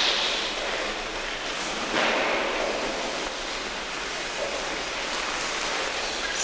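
Steady hiss-like background noise of a large sports hall, with brief swells near the start and about two seconds in, and no ball strikes.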